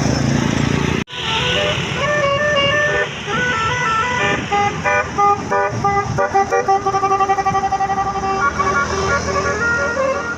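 Tour bus's telolet basuri musical horn playing a quick tune of stepped notes, with a fast run of repeated notes toward the end, over the noise of engines and the road. The sound cuts out briefly about a second in.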